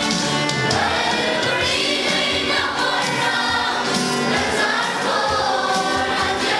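A children's choir sings together, many young voices in a steady, continuous song.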